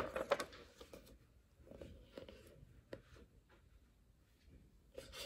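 Paper page of a picture book being turned and handled: a soft rustle and flap of the page, loudest right at the start, then a few fainter rustles about two seconds in.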